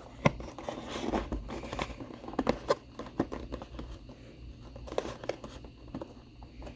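Packaging box of a vinyl collectible figure being handled and pried open: scattered clicks and knocks with some crinkling, a pair close together about two and a half seconds in and another pair around five seconds.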